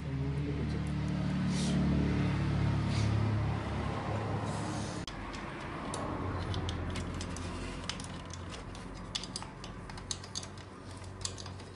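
Metal parts and tools clicking and clinking as the exhaust gasket and pipe are fitted to a motorcycle engine's exhaust port, the clicks coming thick and fast in the second half. A low droning hum is loudest in the first few seconds and fades out.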